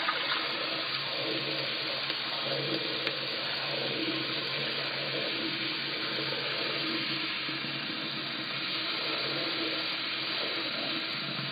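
Tap water running steadily into a ceramic bathroom washbasin as it fills.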